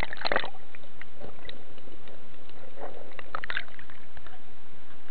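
Sea water splashing and sloshing against a camera in a waterproof case at the water's surface: a brief splash at the start, then a steady muffled hiss with a few faint water sounds about three seconds in.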